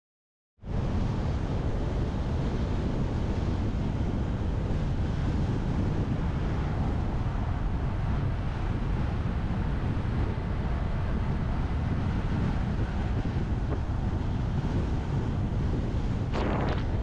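Wind buffeting the microphone of a bike-mounted camera on a fast bicycle descent: a steady low rushing rumble that cuts in suddenly just after the start, with a brief brighter hiss near the end.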